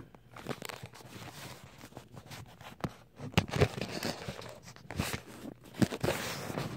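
Handling noise as a handgun and other objects are moved about on a wooden workbench: a few sharp clicks and knocks with rustling between.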